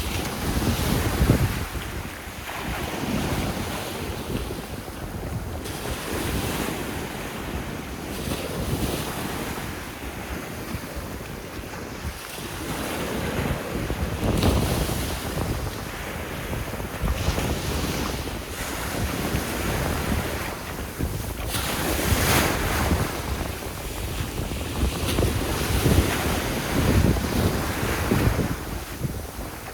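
Sea waves breaking and washing up on a beach in repeated surges, over a steady low rumble of wind buffeting the microphone.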